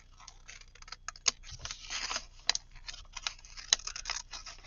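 Paper being trimmed and handled: a run of short sharp snips and clicks, with a stretch of crisp paper rustling about two seconds in.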